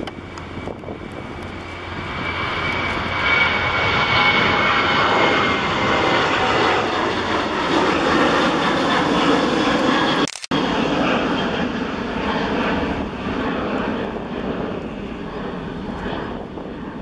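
Boeing 737-800's CFM56-7B turbofan engines at take-off thrust as the jet lifts off and climbs away: the jet noise swells over the first few seconds, with a high fan whine sliding slightly down in pitch. It drops out for an instant about ten seconds in, then runs on, slowly fading.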